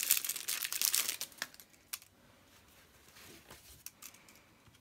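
Packaging crinkling as it is handled, dense for about a second and a half, then quieter rustling with a few light taps.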